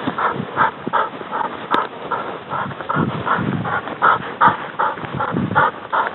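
A German shorthaired pointer hunting dog panting quickly and rhythmically, about three breaths a second.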